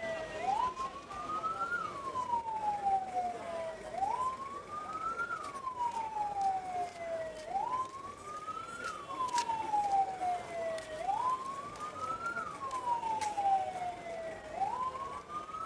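Emergency vehicle siren wailing: each cycle a quick rise in pitch followed by a slower fall, repeating about every three and a half seconds.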